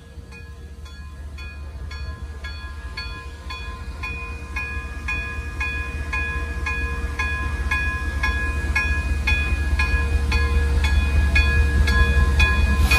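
Steam locomotive No. 29's bell ringing steadily, about two to three strokes a second, growing louder as it nears, over a low rumble.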